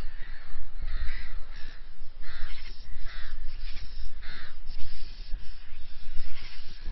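A bird cawing about six times, harsh crow-like calls spaced irregularly, over a steady low rumble.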